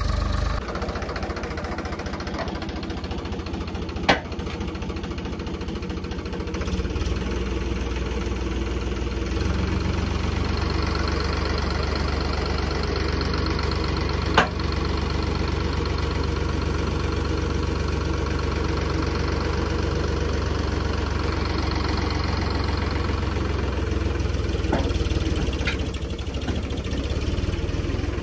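Ford 3600 Turbo tractor engine running steadily while its hydraulics tip a loaded soil trolley. The engine note shifts about nine seconds in, and two sharp knocks ring out at about four and fourteen seconds.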